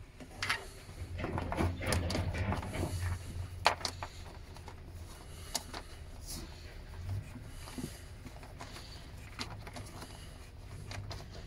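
Handling noise of a cable being fed through a drilled hole in a motorhome's wall trim: rustling and scraping with scattered clicks, busiest in the first few seconds, with one sharp click about three and a half seconds in.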